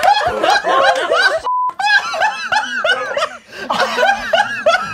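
A group of people laughing loudly together, several voices overlapping. About a second and a half in the laughter cuts out for a short steady censor bleep, then resumes.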